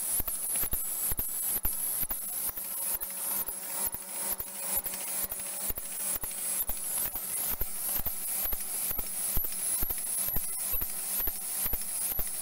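Ball lollipop double-twist wrapping machine running, a steady mechanical clatter of about three beats a second over a high, pulsing hiss.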